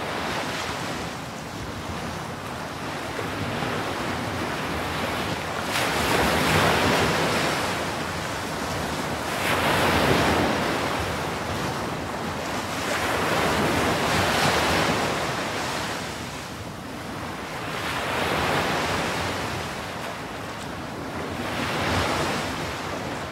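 Rough sea with wind: a steady rushing hiss of waves, swelling and falling back as waves surge in about every four seconds.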